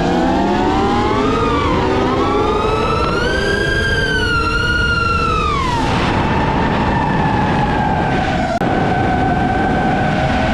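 High-revving engines or motors whining at several pitches at once, their pitch rising over a few seconds and then dropping about six seconds in, before climbing again near the end.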